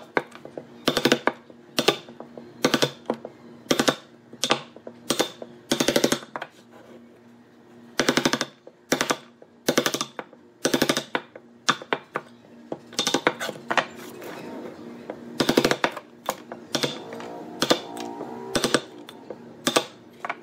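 Steel wood chisel chopping down through the bark edge of a log slice, each cut a short crackling crunch as bark and wood fibres split, about once a second with two short pauses. Faint background music underneath.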